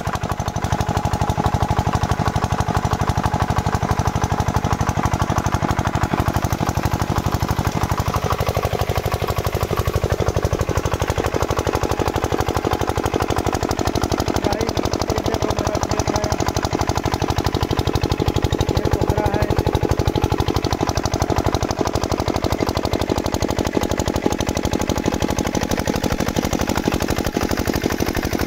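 Single-cylinder diesel engine of a farm irrigation pump set running steadily, with a rapid, even chugging from its exhaust. Water rushes from the pump's outlet beneath it.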